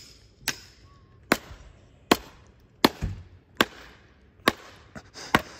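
Hatchet splitting firewood: a run of about seven sharp wooden chops, evenly spaced at a little more than one a second.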